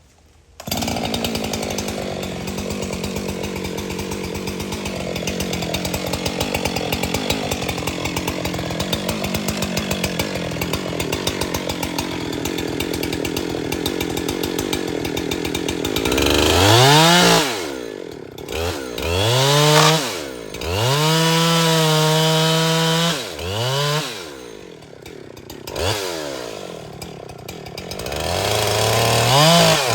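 Husqvarna 372XP XTorq two-stroke chainsaw cutting into a dead maple trunk, running steadily under load for about fifteen seconds. It then revs up and down in several throttle pulls, held high for a couple of seconds in the middle.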